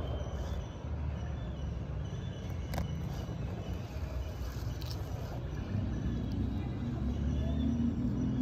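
Steady low outdoor rumble, like distant traffic or wind on the microphone, with a couple of faint sharp clicks. The low hum strengthens somewhat in the last few seconds.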